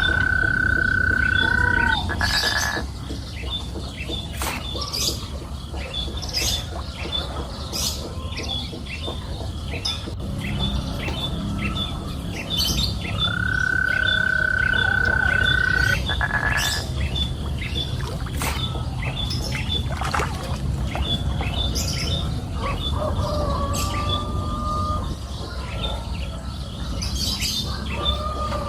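Birds chirping and calling, with a long steady whistled note held for about two seconds, heard twice.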